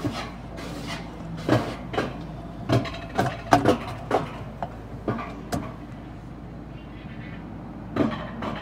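Wiegand alpine coaster sled running down its tubular steel track: a steady rumble from the wheels on the rails, with irregular sharp clunks and rattles from the rough ride. Most of the clunks come in the first four seconds, and one more comes about eight seconds in.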